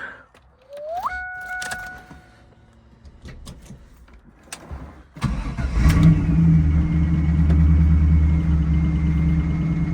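1998 Pontiac Trans Am's LS1 5.7-litre V8 cranked by the starter and catching about five seconds in, then settling into a steady idle.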